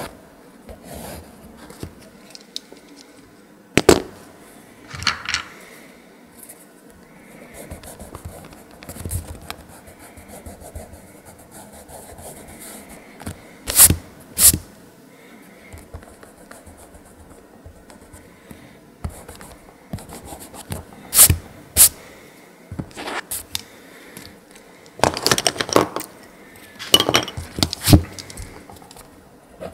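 Mechanical pencil scratching and rubbing on sketchbook paper, broken by several sharp knocks and clatters of handling, with a dense run of them near the end.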